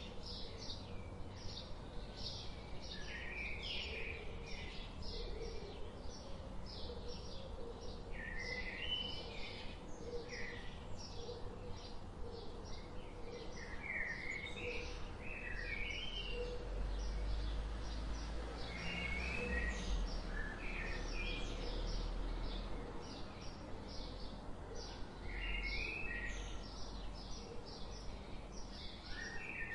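Small birds chirping in short, quick calls, several a second, with some rising and falling notes, over a low rumble that grows louder in the middle.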